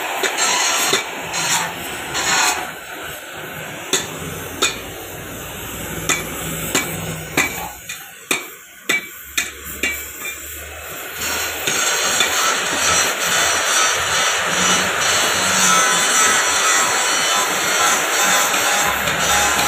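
Oxy-fuel brazing torch hissing steadily while a pipe fitting is brazed. A run of sharp knocks falls around the middle, and the hiss is louder again in the second half.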